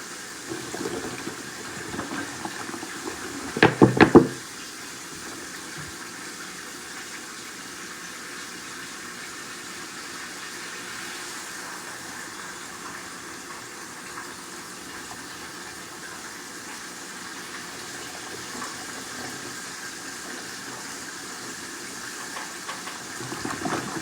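Steady hiss of food cooking in a hot pot on the stove, with a quick run of loud clattering knocks about four seconds in.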